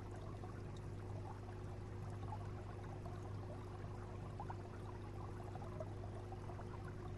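Aquarium water circulation: a faint steady trickling and bubbling over a constant low pump hum.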